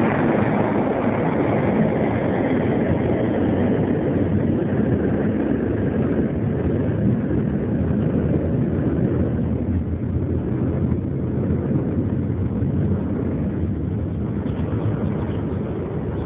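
Steady rumbling vehicle noise, its higher part fading away over the first several seconds while the low rumble carries on.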